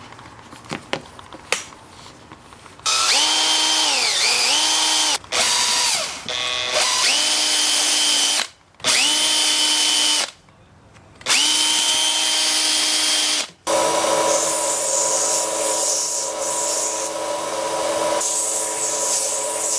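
An electric drill boring into wood, run in several bursts with stops and restarts. Its whine dips in pitch briefly under load a little after four seconds in, and for the last few seconds it runs steadily at a lower pitch.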